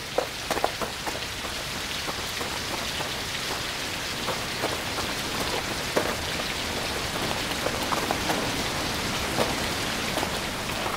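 Steady rain falling, with scattered drops ticking and pattering on a surface.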